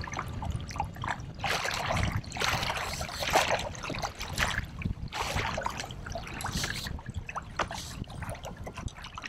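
Choppy water splashing and lapping against a kayak hull in irregular bursts, over a low, uneven rumble.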